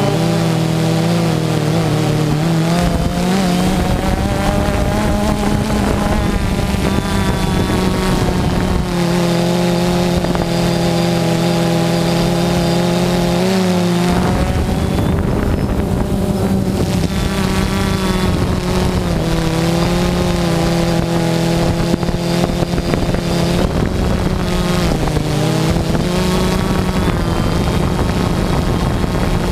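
DJI Phantom 2 quadcopter's electric motors and propellers running with a steady hum, the pitch shifting up and down several times.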